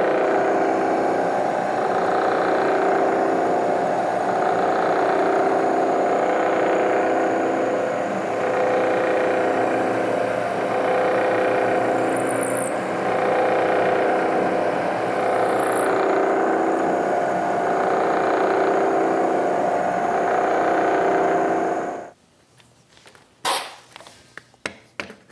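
Milling machine running a 3/8-inch roughing end mill on a finishing pass around the outside of a notch cut into a metal part: a steady, loud cutting whine with several tones that swells and fades slowly. About 22 seconds in, the spindle stops abruptly, followed by a few light clicks and knocks.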